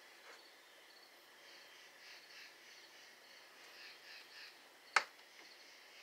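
Night insects such as crickets chirping faintly in a steady repeating rhythm, about two or three chirps a second. One sharp click about five seconds in.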